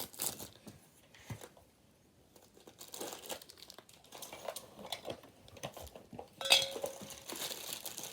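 Plastic packaging of a Funko Soda collectible can crinkling and tearing as it is opened by hand, in irregular crackles that grow busier after about three seconds, with a sharp louder rustle about six and a half seconds in.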